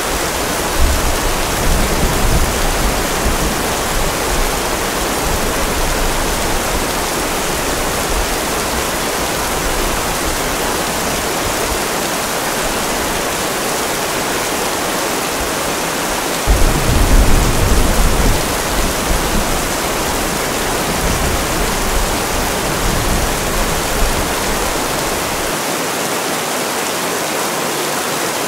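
Steady rain, an even hiss, with low rolling rumbles of thunder under it: one about a second in, and a louder one starting a little past halfway that dies away over several seconds.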